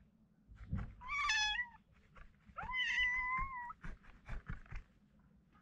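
Kitten meowing twice, the second call longer and held steady, with a few faint clicks in between.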